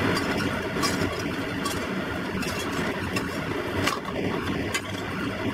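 Scallion pancake sizzling in oil in a stainless steel frying pan, with a metal spatula scraping and clicking against the pan a few times.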